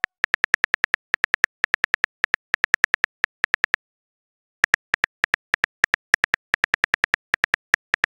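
Phone keyboard key-clicks as a text message is typed: rapid short ticks, several a second, with a pause of about a second midway.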